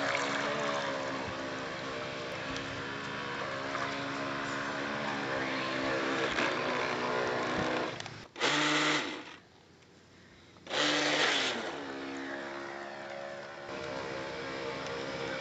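Solar-powered RC boat's small electric motor running with a steady pitched sound over a hiss of water, the pitch shifting slightly up and down. About eight seconds in there are two short, loud rushing bursts about two seconds apart, with the motor sound dropping out almost completely between them.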